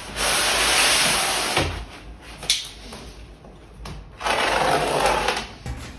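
Packaging being torn open and pulled off during an unboxing: two long rustling scrapes of about a second and a half each, with a sharp click between them.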